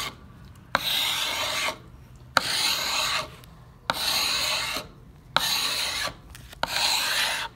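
Hand file scraping across the wood of an old axe handle in five rough strokes, about one every second and a half, each starting with a sharp click as the file bites into the wood.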